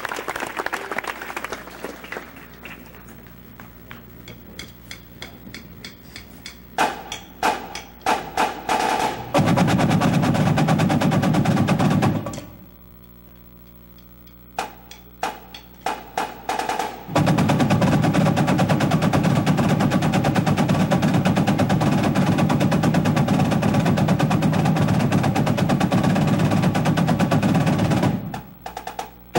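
A marching snare line playing together: a few scattered strokes, a short burst of fast, dense playing, a pause, then a long stretch of fast continuous playing that cuts off suddenly near the end before starting again.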